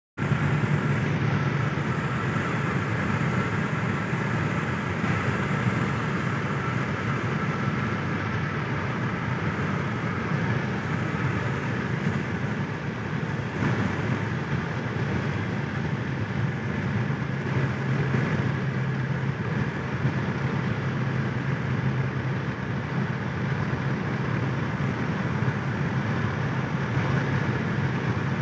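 Steady road and engine noise inside a car's cabin while driving.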